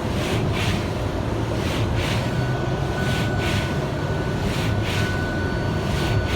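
Kia Sorento driving through heavy snow, heard from inside the cabin: a steady engine and road rumble. Over it the windshield wipers swish back and forth, a pair of strokes about every one and a half seconds, and a thin steady whine comes in about two seconds in.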